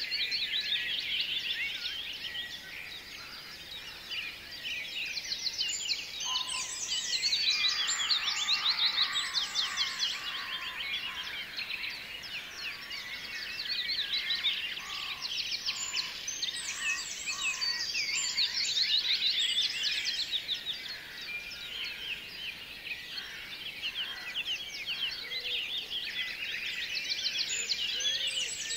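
Dense chorus of many small birds chirping and twittering without pause, quick high chirps swelling and easing every few seconds.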